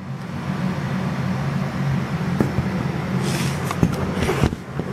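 Butane jet-torch lighter burning with a steady hiss. Rubbing noise and a few clicks of handling come from about three seconds in.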